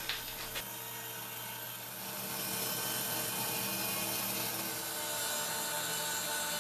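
Band saw running, its wide blade cutting a curve through a thick maple-and-walnut block: a steady motor hum under the rasp of the cut, a little louder from about two seconds in.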